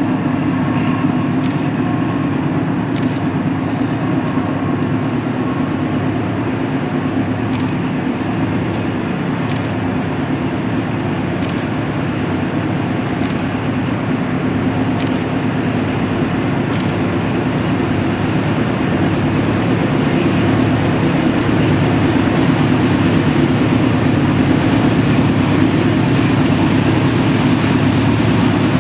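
Norfolk Southern diesel freight locomotives running as the train approaches: a steady, loud engine drone that grows louder toward the end as the locomotives near.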